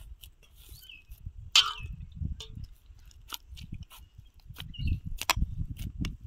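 Hands kneading dough in a steel basin: irregular soft squishing and pressing, with scattered sharp clicks and knocks against the metal bowl, the loudest about a second and a half in.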